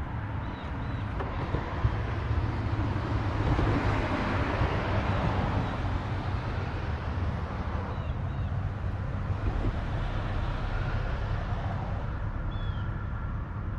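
Road traffic on the bridge ahead: a vehicle passing swells up and fades away about four seconds in, with a smaller swell later, over a steady low hum.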